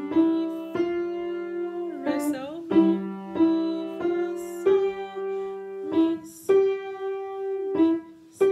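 Piano played slowly with both hands: a simple melody of single notes, one about every half second to a second, over a low held bass note.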